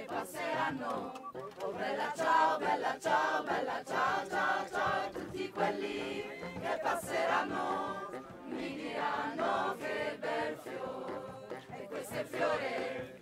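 A group of voices singing together in chorus.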